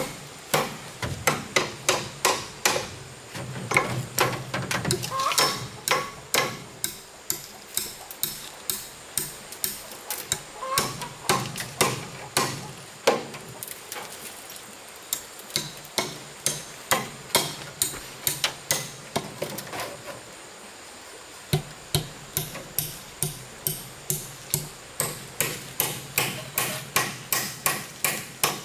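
Steady hammering: sharp, even blows about two a second, with a brief pause about twenty seconds in before the strikes resume.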